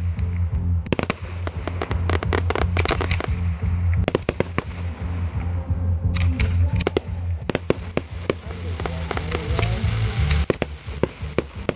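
Firework display: many sharp bangs and crackles from shells and candles firing and bursting, thinning briefly about four to six seconds in.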